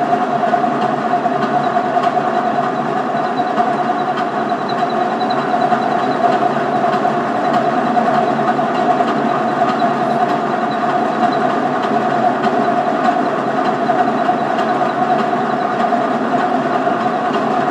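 Center lathe running steadily during a facing cut, its motor and gearing giving a constant mid-pitched whine over a dense mechanical hum.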